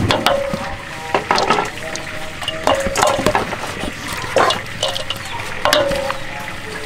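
Shredded green papaya salad being tossed and mixed in a large stainless steel bowl: wet rustling of the shreds, with a spoon knocking and scraping against the bowl several times, some knocks leaving a brief metallic ring.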